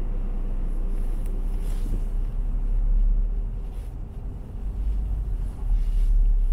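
Low, steady rumble of a Renault car's engine and tyres heard from inside the cabin while driving, dipping briefly about four seconds in.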